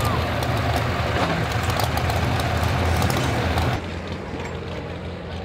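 A tractor's diesel engine runs steadily close by. Nearly four seconds in, an abrupt cut leaves a quieter, steady engine idle from a staged pulling truck.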